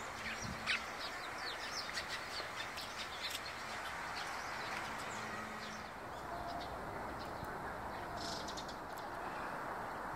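Eurasian tree sparrows chirping: a quick flurry of short chirps over the first few seconds, then scattered chirps, over a steady background rush.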